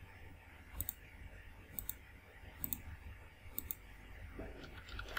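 Computer mouse clicking: four quick double clicks about a second apart, then a few fainter clicks near the end, over a faint hum.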